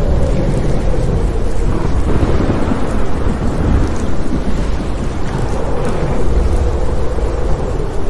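Thunderstorm: a continuous low rumble of thunder with a steady hiss of rain.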